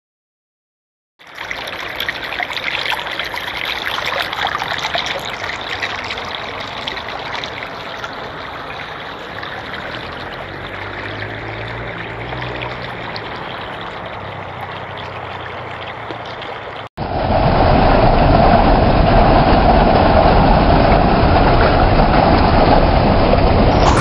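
After about a second of silence, river water rushes and laps steadily. Then, after a sudden cut, the louder, steady rush of a waterfall cascading over rocks takes over.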